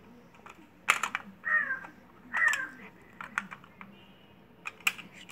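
Metal geometry instruments clicking and clinking against a tin geometry box as they are picked up and handled, in a string of sharp clicks. Two short high sounds falling in pitch are heard about one and a half and two and a half seconds in.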